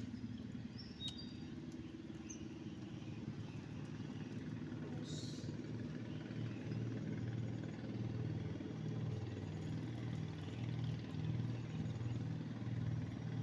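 An engine running steadily with a low, even hum that grows a little louder in the second half.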